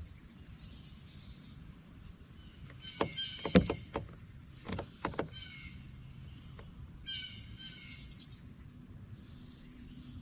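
Wild birds singing in short bursts of high, falling phrases over a faint steady high whine, with a cluster of sharp knocks about three to five seconds in.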